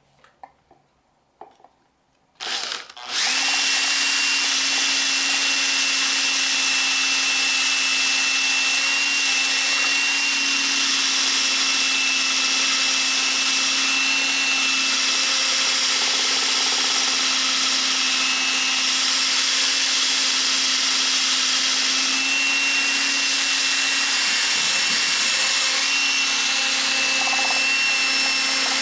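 Drill spinning a polishing pad with compound over a plastic solar panel to buff off oxidation. A few faint clicks, then it starts about two and a half seconds in and runs at a steady speed with a constant whine.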